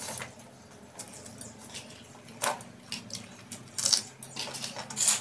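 Hands eating rice from stainless steel plates: fingers scraping and tapping on the metal, making scattered clinks and scrapes, the loudest at the start and about two and a half, four and five seconds in.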